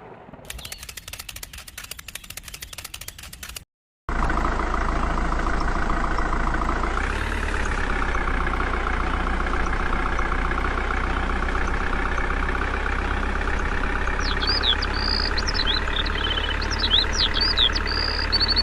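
Tractor engine running steadily after a few seconds of quick, faint clicking; it rises a little in pitch about three seconds after it starts. High chirps sound over it near the end.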